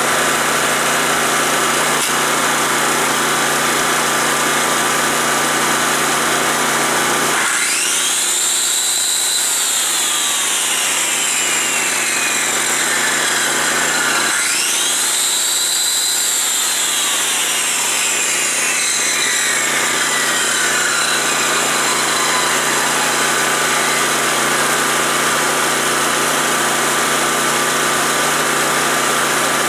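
Yamaha EF2800i inverter generator's overhead-valve engine running steadily under light load. An electric circular saw powered from it is run twice with no load, about seven seconds apart: each time its motor whines up quickly, then winds down over several seconds.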